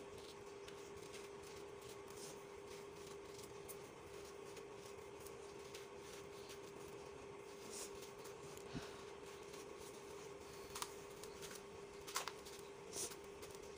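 Dry, gritty dirt clumps crumbling and crunching between the hands, a faint run of small crackles with a few sharper crunches in the second half. A steady low hum runs underneath.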